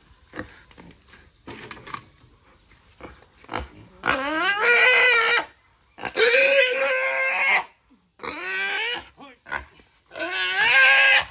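Wild boar squealing in distress while being caught and held: a few faint scuffs and knocks, then four loud, long, shrill squeals, each rising in pitch at the start, beginning about four seconds in.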